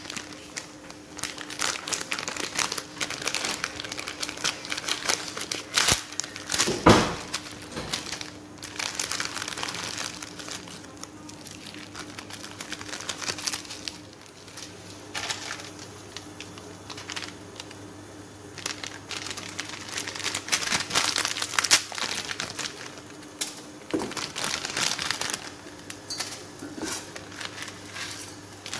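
Plastic instant-noodle packet and its seasoning sachets crinkling and rustling as they are handled and cut open with scissors, in irregular bursts. A louder knock about seven seconds in, and a faint steady hum underneath.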